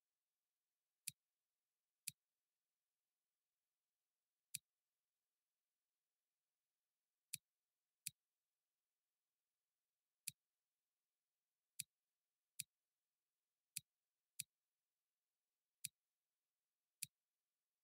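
Computer mouse clicking: about a dozen single sharp clicks at uneven intervals, some a second or more apart and some under a second, with dead silence between them.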